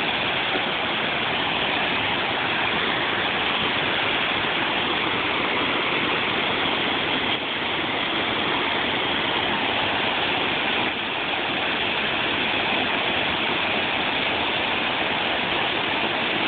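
Mountain stream rushing over small cascades between boulders: a steady, even roar of splashing water.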